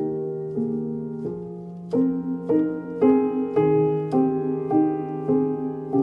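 Slow instrumental piano music: single notes struck about every half second over long-held low notes.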